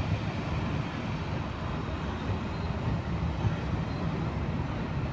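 Passenger coaches of a steam-hauled train rolling past slowly, a steady low rumble of wheels on the rails.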